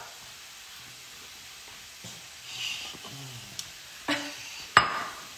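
Food sizzling in a frying pan as a steady hiss. About halfway through, a short breathy blow into a paper towel and a little low voice sound, then a sharp knock near the end.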